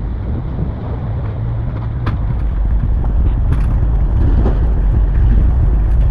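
Steady low engine rumble with wind and road or water noise, growing slightly louder partway through.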